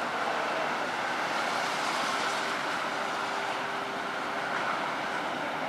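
A steady, unexplained droning rumble, like distant machinery or rail traffic, with a faint held hum through the middle.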